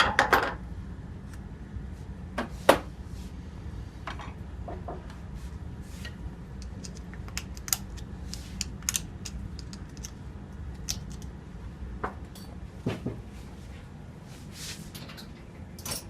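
Metal tools clicking and clanking against an air-conditioning compressor as its electromagnetic clutch is taken off: scattered sharp clicks, the loudest about two and a half seconds in, over a steady low hum.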